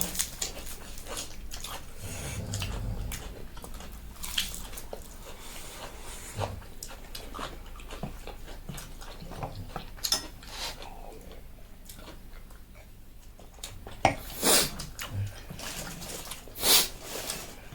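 Close-up eating sounds of noodles and side dishes: steady wet chewing and mouth smacks with small utensil clicks, and two louder slurps near the end.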